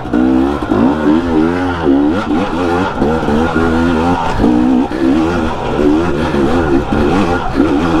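Dirt bike engine revving up and down on a rocky hill climb, its pitch rising and falling over and over with the throttle.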